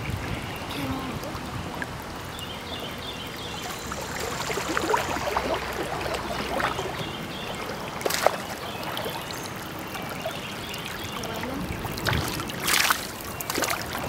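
Creek water running steadily around a wading angler, with a sharp splash about 8 seconds in and a flurry of louder splashes near the end as a hooked fish thrashes at the surface while being reeled in.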